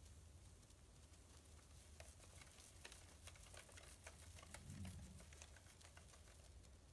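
Faint crackling fizz of tiny bubbles popping as a Big Blue bath bomb dissolves in bathwater inside a metal sieve, with a soft low swish of water about five seconds in.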